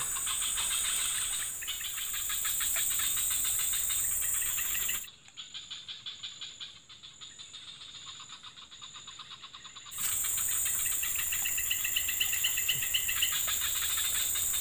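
A dense chorus of insects, crickets and cicadas, chirring in rapid pulses over a steady high buzz. It drops much quieter for about five seconds in the middle, then returns at full strength.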